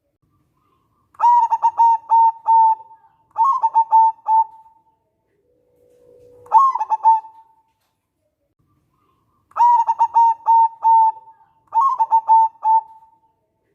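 Zebra dove (perkutut) cooing: five phrases, each a quick run of short clipped notes settling into a held coo, with a soft low note leading into the third phrase.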